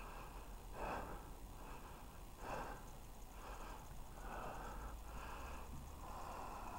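A man breathing close to the microphone, a faint breath every second or two.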